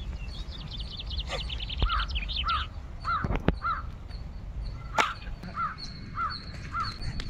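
A crow cawing repeatedly in two runs of about four calls each, with a small bird twittering rapidly in the first couple of seconds. Two sharp clicks cut through about three and a half and five seconds in.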